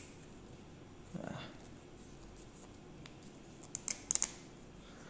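Light metal clicks and taps of a small gear puller being handled and repositioned on a turbopump rotor shaft, with a quick cluster of clicks about four seconds in.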